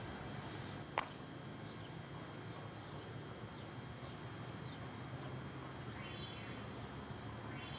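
Faint steady low hum of distant GE C30 diesel locomotives approaching at low speed, with birds calling over it and one sharp chirp about a second in.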